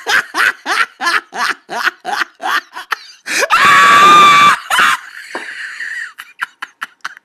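A person laughing hard in quick bursts, then a loud, high-pitched shriek lasting about a second, a little after three seconds in, trailing off into weaker laughs.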